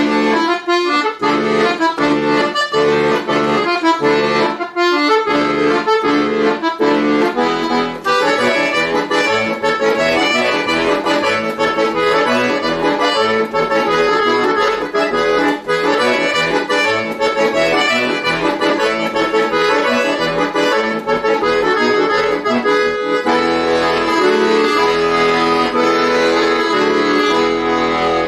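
Chromatic button accordion played solo: short, detached chords with brief gaps for the first several seconds, then a continuous busy passage, moving into fuller held chords near the end.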